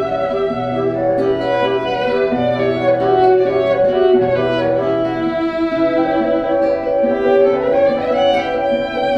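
Violin music: held bowed notes over a low note sounded in long, even strokes, with a rising slide about eight seconds in.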